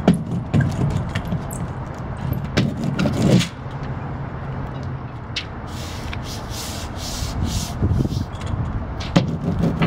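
Self-adhered flashing tape being pressed onto housewrap: a hand roller rolling over the tape in the first few seconds, then a run of short, hissy rubbing strokes as a hand smooths the tape down, over a steady low hum.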